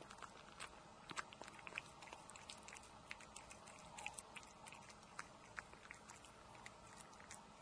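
A cat eating wet fish-flake cat food from a plate: a steady run of small, irregular wet chewing clicks and smacks.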